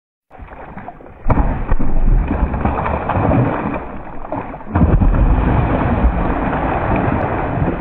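Water splashing and churning as a hooked fish thrashes at the surface of a weedy pond. It surges sharply louder about a second in, and again just before the middle.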